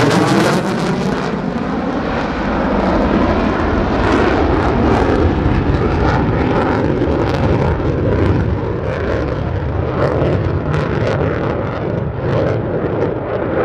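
F-35A Lightning II fighter jet's single Pratt & Whitney F135 afterburning turbofan, loud and continuous as the jet flies past, with a rapid ragged crackle running through the noise from about four seconds in.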